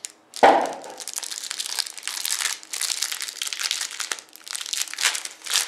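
A single thump about half a second in, then the foil wrapper of a trading-card pack crinkling as it is worked open by hand.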